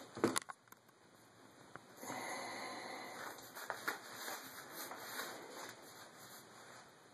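Faint rustling and handling noise from a hand-held phone being moved about, with a few sharp knocks just after the start and a couple more about four seconds in.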